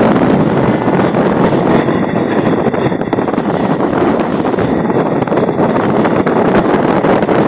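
Passenger train running at speed, heard from the coach side: a steady rush of wheel and track noise mixed with wind rushing over the microphone.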